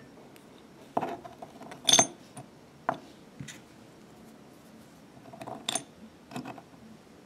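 Metal sewing-machine bobbins clinking and clicking as they are handled and pushed into a short length of PVC pipe: a handful of sharp clinks, the loudest about two seconds in, with a short metallic ring.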